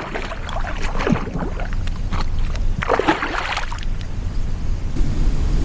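Water splashing and sloshing around a kayak in two short bouts, the first in the opening second and a half and the second about three seconds in, over a steady low rumble of wind on the microphone.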